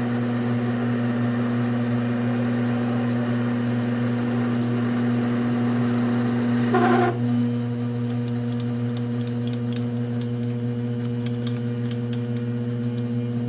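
Taig lathe running with a steady motor hum while turning aluminum with a tangential tool. About seven seconds in there is a short squeal, after which the hiss quietens and light ticks are heard.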